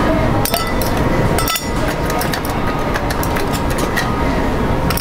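Ice cubes clinking into a drinking glass as they are added, a few separate clinks, over a steady background rumble.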